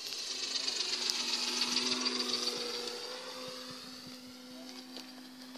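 Radio-controlled scale Pitcairn PCA-2 autogyro model flying past overhead, its motor and propeller making a high-pitched whine. The whine swells to its loudest about two seconds in and then fades as the model moves away.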